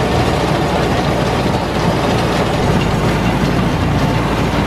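Farm tractor and hay mower running steadily while cutting hay: a loud, even engine drone and machine noise.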